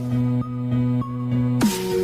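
Electronic dance music with a sustained bass line and regular short notes on top, and a rising sweep of noise near the end.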